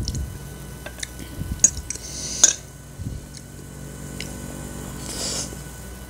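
A metal fork clinks and scrapes against a ceramic plate as fried instant noodles are twirled up, with a few sharp clinks, the loudest about two and a half seconds in. Near the end comes a short slurp of noodles.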